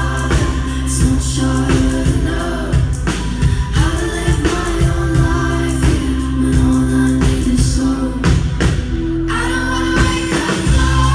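A female lead singer of an electropop band sings live, holding long notes over a heavy synth bass and drum beat. The bass drops out for about two seconds near the end and then comes back in.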